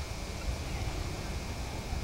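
Low rumble of wind on a camcorder's microphone, over a faint steady hiss.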